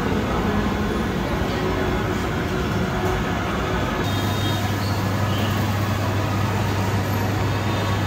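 Steady, dense background din of a busy indoor food hall, with a low steady hum coming in about halfway through.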